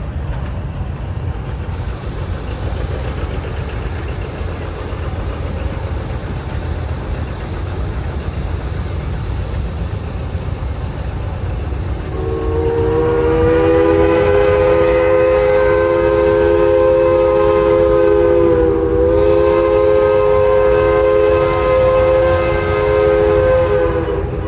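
A multi-tone chime whistle sounds a long, loud, steady chord starting about halfway in, dipping slightly in pitch partway through and cutting off near the end. Before and under it runs a steady low rumble.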